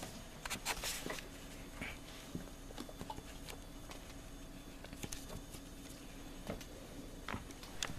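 Faint, scattered soft clicks and rustles of handling and movement close to the microphone, a small cluster about a second in and a few more near the end.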